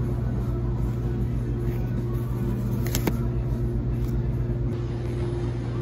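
Steady low electrical hum of an ice cream shop's refrigerated display freezers, with a single sharp click about three seconds in.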